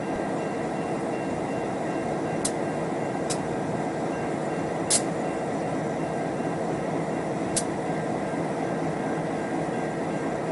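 Steady noise of a freight train on the line, with four short, sharp high squeaks spread through it.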